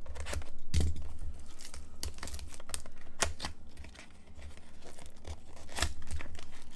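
Small cardboard box of trading cards being cut open with a utility knife and torn open by hand, with tearing, crinkling and scattered clicks of the cardboard being handled.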